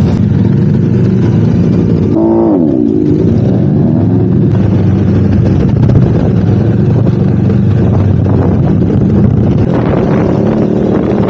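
Motorcycle engine running under way as the bike rides along, with a brief falling tone about two seconds in.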